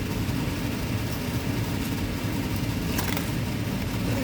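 Electric fan running with a steady low rumble, with a faint click about three seconds in.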